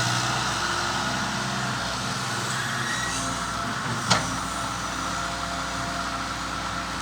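Diesel engine of a Volvo Pel-Job EB506 mini excavator running steadily, with a single sharp knock about four seconds in.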